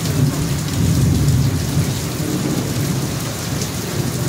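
Thunder rumbling low and continuously over steady rain, easing a little after the first second.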